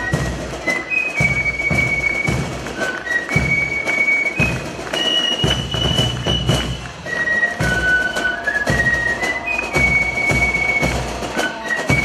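Fifes and drums playing a march: a single high, whistling fife melody in held notes over repeated drumbeats.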